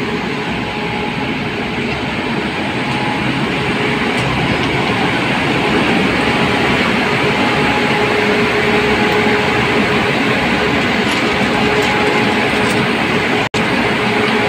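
Steady rumble and hiss of train machinery running, with a faint steady hum through it; the sound cuts out for an instant near the end.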